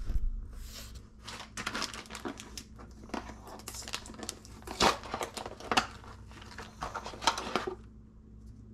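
Plastic packaging bag and cardboard box being handled and opened while a new part is unboxed: a run of irregular crackles and rustles that dies away near the end.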